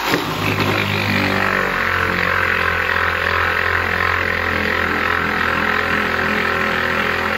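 Cheap corded orbital waxer-buffer switched on and running steadily, a motor hum with a hiss from its soft pad rubbing compound against a plastic headlight lens.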